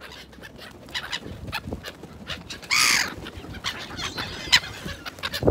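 Gulls flapping and landing close over a person's head, with a run of short flaps and scuffs, and one loud gull call about halfway through.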